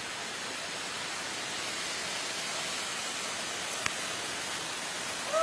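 Steady rush of a swollen, flooding river, its fast water churning around rocks and wading elephants. One sharp click about four seconds in.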